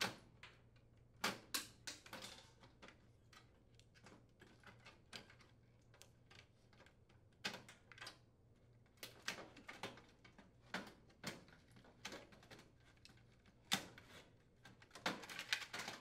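Plastic wire-harness connectors being unplugged from an electric range's control board: scattered light clicks and clatters at irregular moments, with a denser spell of handling noise near the end.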